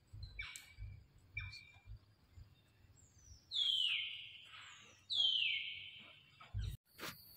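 Two loud, high-pitched animal calls, each sliding down in pitch over about a second, the first about three and a half seconds in and the second just over a second later, with a few shorter, fainter calls before them.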